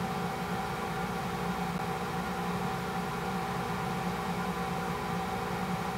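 A steady hum made of several constant tones, the strongest low and one higher, over an even hiss, with no change in level.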